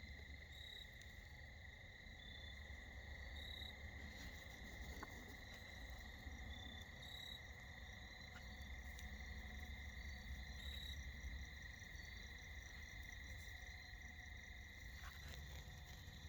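Steady chorus of crickets and other insects trilling, with a short high chirp repeating about every three and a half seconds and a faint low rumble underneath.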